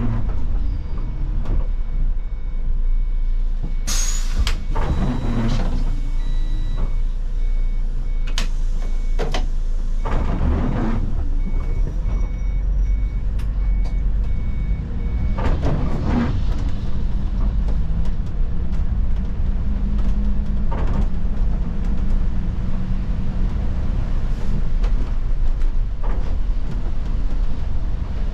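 Inside the cab of an Iveco Crossway city bus under way: a steady low engine and road rumble, broken by several short louder noises. A repeating electronic beep sounds through roughly the first half.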